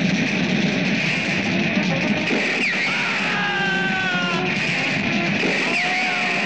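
Action-film background music, dense and steady, with a few sliding tones about halfway through.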